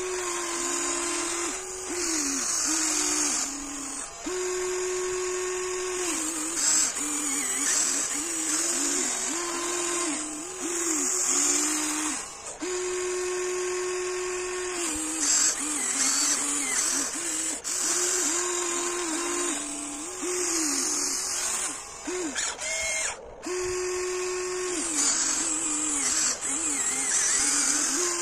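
Huina 1594 RC excavator's small electric motors whining as the boom, arm and bucket are worked. The pitch steps up and down and the whine stops and restarts every second or two as different controls are used and the motors strain against the packed gravel.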